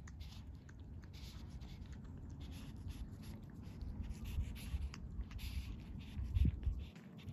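Kitten lapping milk from a stainless steel bowl: a quick, irregular run of small wet tongue laps. A low thump stands out about six and a half seconds in.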